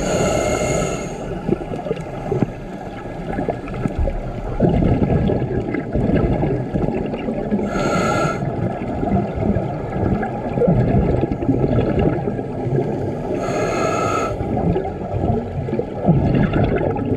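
Scuba diver breathing through a regulator underwater: three inhalations, each a whining hiss of about a second from the demand valve, six to eight seconds apart, with the low, gurgling rumble of exhaled bubbles in between.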